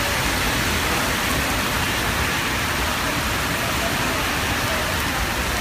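Heavy rain pouring steadily on a city street, mixed with the hiss of car tyres on the wet road.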